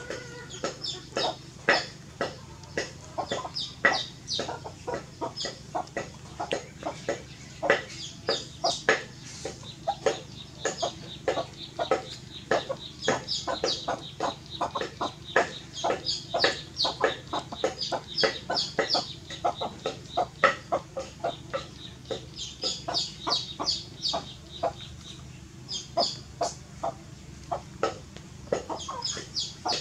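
Chickens clucking: a dense, irregular run of short, sharp calls, several a second, that keeps going throughout.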